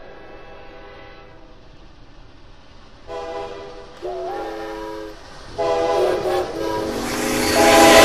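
Train horns and whistles from several approaching trains, sounding one after another, each a different chord: a faint one fading at the start, then blasts about three, four and five and a half seconds in, the second bending up in pitch as it begins. Near the end the rumble of an approaching train swells and a horn sounds loudly over it.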